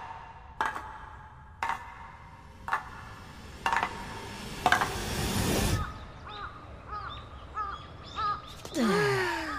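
Wooden geta sandals clacking on a stone floor, one step about every second. Past the middle the steps give way to a brief swell of noise and then a run of short, rising-and-falling calls.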